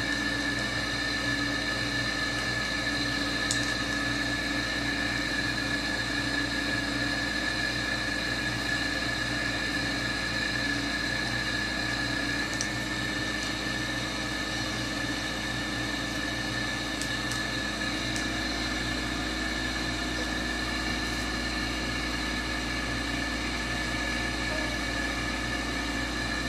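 Steady hiss and hum with a constant high tone, unchanging throughout, broken only by a few faint clicks.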